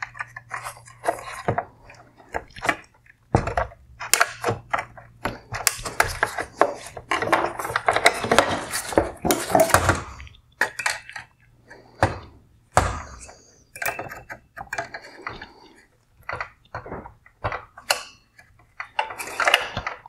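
Plastic parts of an LED headlight clicking, knocking and scraping as the inner projector and its wire harness clip are worked loose from the black plastic housing. The clicks come irregularly, busiest around the middle.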